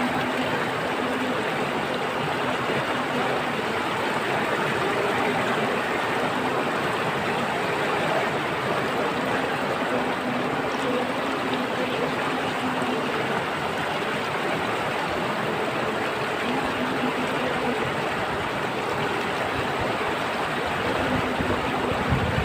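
Water flowing steadily, an even rushing like a stream.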